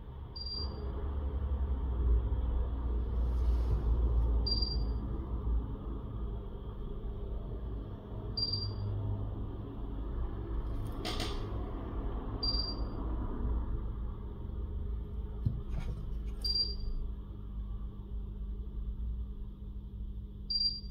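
Workbench room tone: a steady low rumble and hum, with a short high electronic beep repeating about every four seconds and a couple of light sharp clicks from handling parts near the middle.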